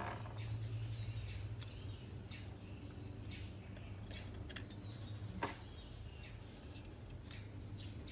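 Small birds chirping repeatedly in the background over a low steady hum, with one sharp click about five seconds in.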